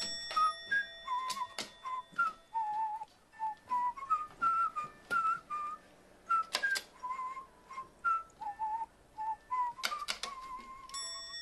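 Background music: a whistled melody of short hopping notes, with sharp clicks scattered through it.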